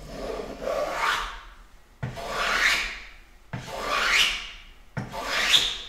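Block plane taking shavings along the edge of a thin cherry board: four strokes, each a hiss about a second long that rises in pitch toward its end.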